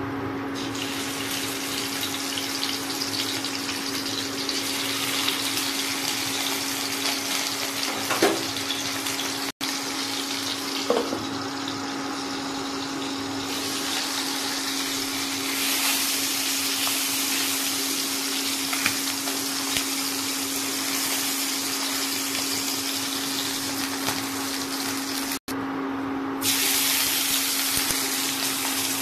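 Bok fish sizzling as they fry in hot oil in a nonstick pan: a steady hiss with a few crackles, over a steady low hum. The sizzle grows louder near the end as the fish is turned.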